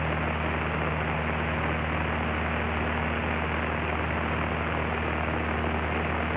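Cessna 152's four-cylinder Lycoming O-235 engine and propeller droning steadily in flight, heard inside the cockpit: a constant low hum with an even rush of noise over it.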